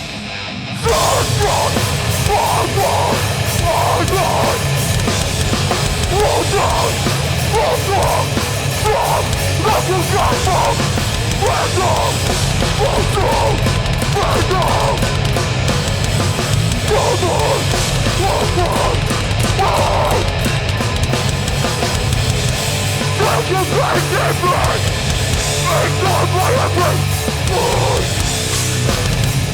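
A live hardcore band playing loud and heavy, with distorted guitars, bass and drums. The sound drops briefly at the start, and the full band comes back in under a second in.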